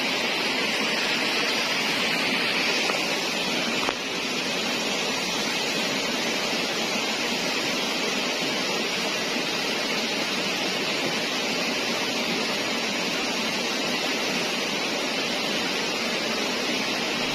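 Steady rushing of flowing water, an even hiss with no breaks, dipping slightly in level about four seconds in.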